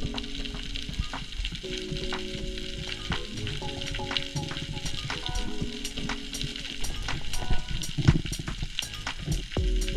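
Dense underwater crackling of snapping shrimp on a rocky reef, many sharp clicks running together like frying fat, heard through a submerged camera housing. Background music of held chords that change every second or two plays over it.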